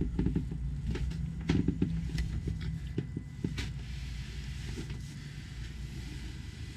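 Footsteps and handling knocks going down carpeted stairs and along a hallway, irregular soft thumps and clicks over a steady low hum.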